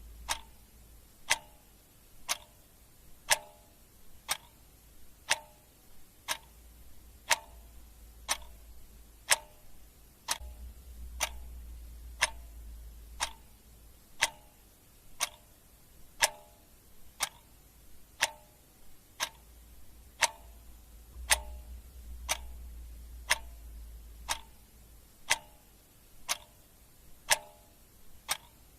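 Clock ticking steadily, about one tick a second, each a sharp click with a short ring.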